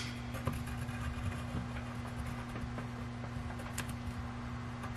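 A pen tracing firmly over paper laid on a wooden board, faint scratching with a few light clicks, over a steady low hum.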